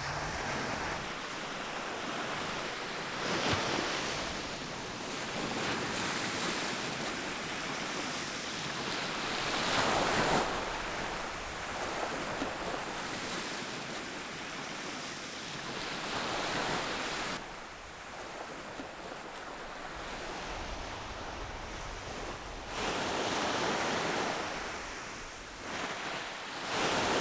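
Surf breaking and washing up a sandy beach, swelling and fading every six seconds or so, with some wind on the microphone.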